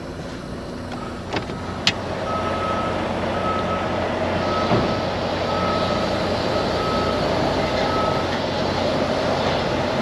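Semi-truck diesel engine pulling under load at low speed, as the tractor drags the reefer trailer over its locked tandem axles to slide them. Two sharp clicks come early, and a run of evenly spaced single-pitch beeps, roughly one a second, sounds over the engine from about two seconds in until near the end.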